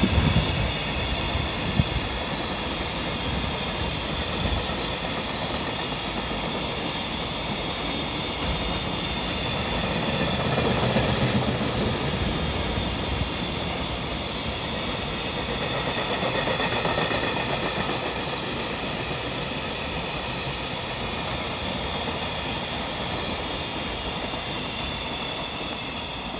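Container wagons of a long freight train rolling past on the rails: a steady rumble of wheels on track that swells a little twice along the way.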